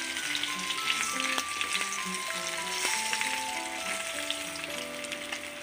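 An egg frying in hot oil in a small nonstick pan, sizzling steadily with small crackles. Soft background music of held notes plays under it.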